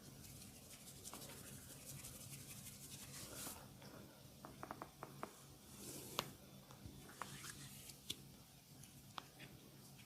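Hands rubbing and scratching over hair and skin during a head massage, a faint dry rustle, broken by small sharp crackles: a quick run of them about halfway through, then single ones every second or two.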